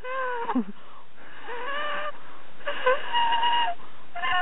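A person's high-pitched hooting calls, about four in a row, the first falling away at its end and the longest held steady for about a second.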